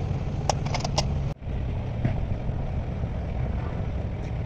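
Steady low engine rumble, as of a motor idling, with a few light clicks in the first second.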